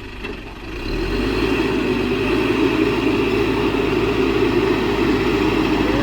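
Heavy diesel engine of earthmoving equipment running; it gets louder about a second in, then holds steady.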